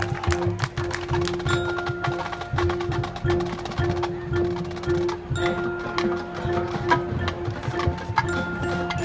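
Marching band percussion playing a fast rhythm of sharp clicking strikes, with short ringing metallic notes about every few seconds over a steady tone.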